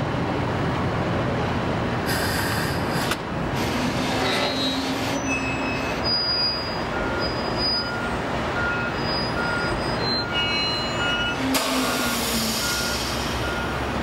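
Diesel engine of heavy construction machinery running steadily. From about halfway, a back-up alarm beeps evenly about every 0.7 s. A short hiss comes a couple of seconds in and again near the end.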